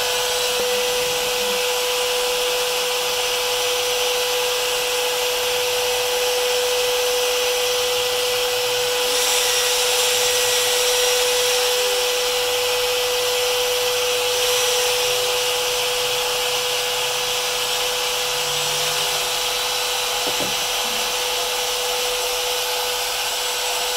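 Router motor on a hobby CNC router running steadily at speed with a constant whine as the machine carries out its program. The hiss grows brighter and a little louder for a few seconds from about nine seconds in.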